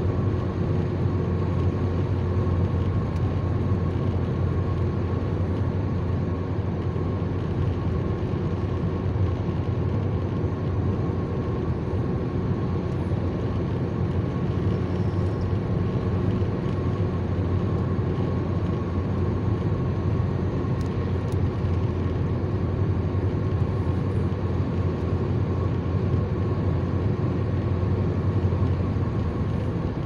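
Car cruising at highway speed, heard from inside the cabin: a steady low drone of tyre and engine noise that stays even throughout.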